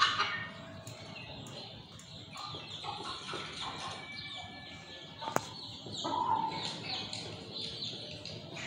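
Chickens clucking quietly, with many short high chirps throughout and a single sharp click about five seconds in.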